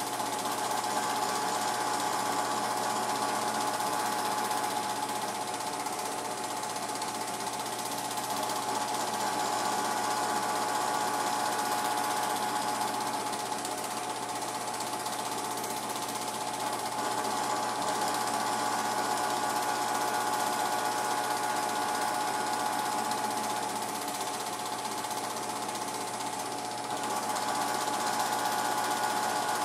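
Home-movie film projector running steadily, a continuous mechanical whirr with a steady whine.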